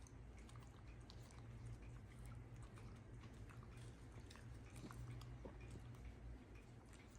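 Near silence: a steady low room hum with faint, scattered small clicks and ticks.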